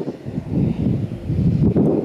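Gusty wind buffeting the microphone, rising and falling unevenly, over a low rumble of jet aircraft.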